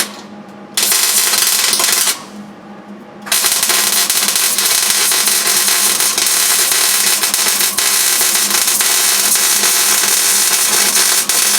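MIG welder crackling on a sheet-metal floor patch: a short tack weld of about a second, then, after a brief pause, a long continuous bead lasting about nine seconds.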